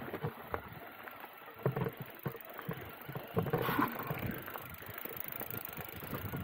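Mountain bike rolling over a gravel track: tyres crunching on loose stones, with many short knocks and rattles from the bike over bumps, heard from a handlebar-mounted camera.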